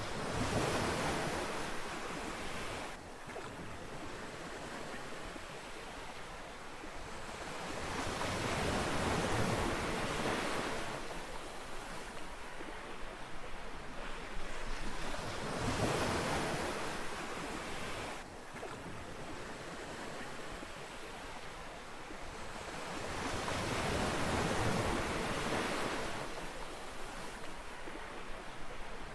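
Ocean waves washing onto a beach. The surf rises and falls in four surges several seconds apart, each swelling to a hiss and then drawing back.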